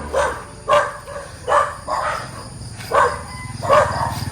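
Dog barking repeatedly, about six short barks. A low steady hum comes in near the end.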